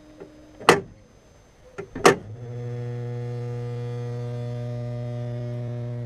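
Two sharp clacks from the bonnet catch, then from about two seconds in a steady buzzing hum sets in and holds. The hum comes from the wastegate actuator solenoid valve of the Vauxhall Insignia's 2.0 diesel (A20DTH), which flaps instead of staying open or closed, set off by the vibration of the catch release.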